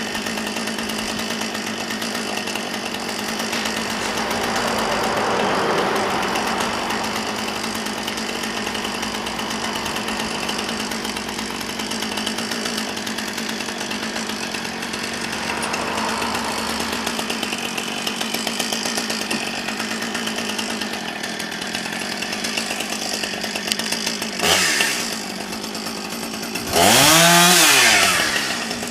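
Chainsaw running steadily at idle, revved up briefly once near the end and again, louder and for about a second, just before the end, its pitch rising and falling back.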